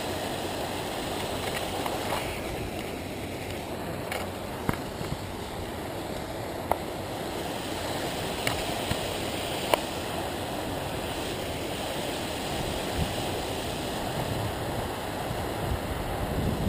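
Steady wind rush on an action camera's microphone during a bicycle ride, with tyre noise on pavement underneath. A few sharp clicks come through about a third and halfway in.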